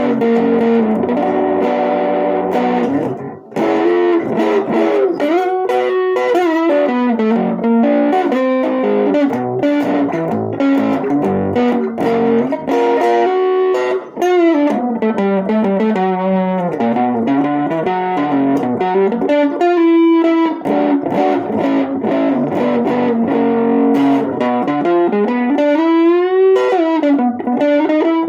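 1960 Guild T100 thinline hollow-body electric guitar on its neck pickup, played through a tube amp with a little gain. It plays chords and single-note lines with string bends and vibrato, pausing briefly twice.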